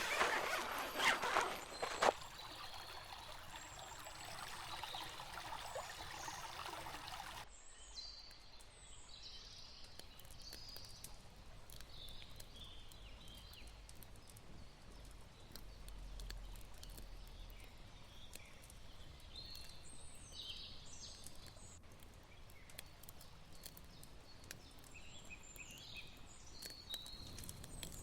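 Quiet spring-forest ambience. A few loud knocks and rustles come in the first couple of seconds. After a sudden change about seven seconds in, small birds chirp now and then over a faint background hush.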